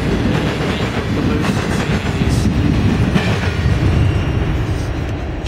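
Freight cars rolling past on the rails: a steady low rumble with scattered sharp wheel clicks, beginning to fade near the end as the last car moves away.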